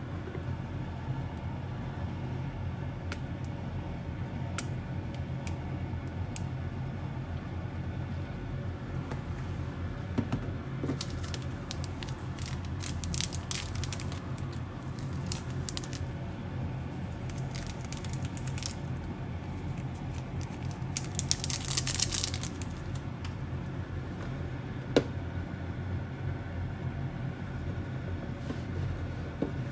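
Steady low hum with scattered small clicks and handling noises as toppings are squeezed and sprinkled onto the okonomiyaki, including a short hissy rustle about two-thirds of the way through.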